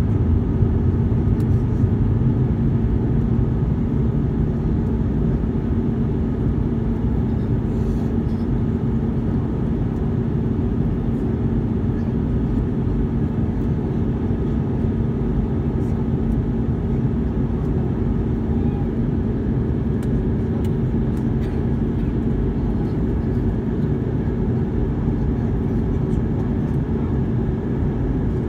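Steady cabin noise inside an Airbus A319 in flight: the drone of its IAE V2500 turbofan engines and the rush of air past the fuselage, with a steady low hum. It is slightly louder in the first few seconds, then holds even.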